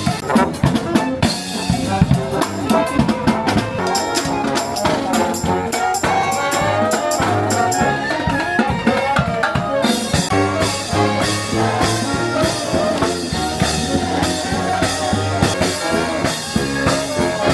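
Upbeat music with brass, trumpets and trombones over a drum kit, playing steadily.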